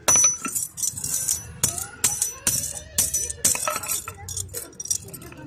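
Hammer blows on an iron buffalo chain link held with pliers on a steel pulley used as an anvil: sharp metallic strikes with a high ring, about two a second. Near the end the blows stop and the chain rattles as it is picked up.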